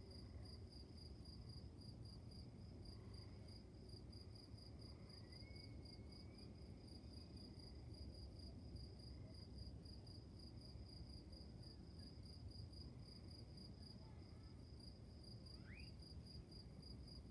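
Crickets chirping faintly in a steady, even train of high-pitched pulses, over a low steady rumble.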